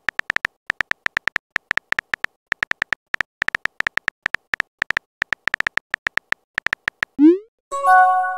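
Texting-app sound effects: short high keyboard tap tones in an uneven typing rhythm, five or six a second. About seven seconds in comes a quick rising swoosh as the message is sent, followed by a short chime of several tones.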